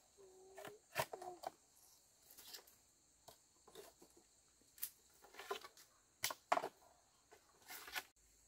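Dry sticks and dry bamboo leaf litter crackling and snapping as firewood is picked up, a string of sharp cracks and short rustles. A bird calls twice in the first second and a half, over a steady high insect hiss.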